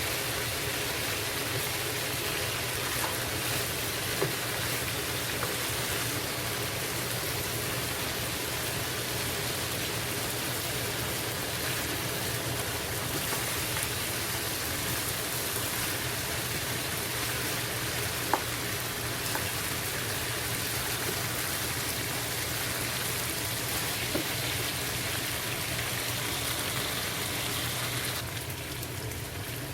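Chicken frying in oil in a covered pot: a steady sizzle with a few sharp pops, a little quieter near the end.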